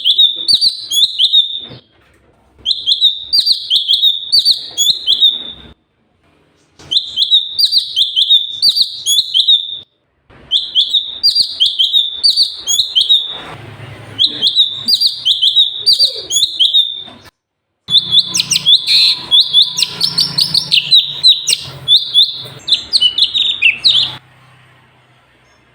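A cucak cungkok songbird singing a loud, rapid, high-pitched song. It comes in about five bursts of a few seconds each with short pauses between them, and stops shortly before the end.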